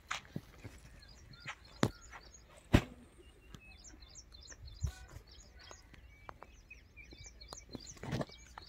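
Small birds chirping in quick, repeated high twitters. Several sharp knocks are scattered through, the loudest a little under three seconds in.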